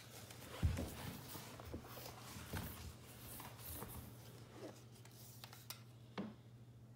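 Handling noise of a caulking gun being moved and repositioned, with a few soft knocks and clicks and clothing rustle, over a steady low hum.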